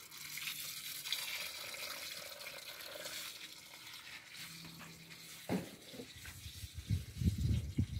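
Water from a hose running into a plastic drum onto fertiliser granules, a steady hiss that fades about five seconds in. A few low thumps follow near the end.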